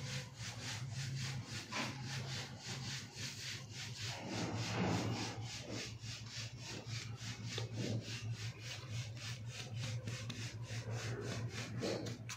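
Steady, even scraping or rasping strokes, about three a second, over a constant low hum.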